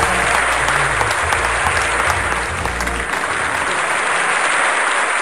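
Dinner guests applauding steadily, a dense clapping.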